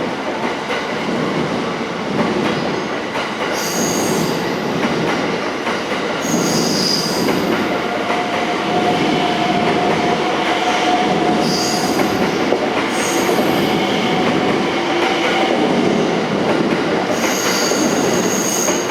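Sunrise Express 285 series sleeper electric train running out of service past the platform: a steady rolling rumble with several short, high wheel squeals.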